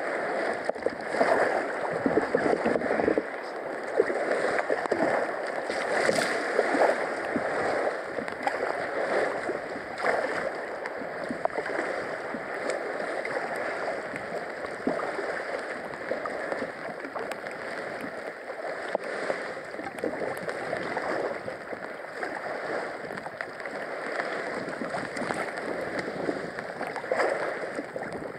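Water gurgling and splashing around a kayak on the water, a continuous uneven wash without a clear paddle rhythm.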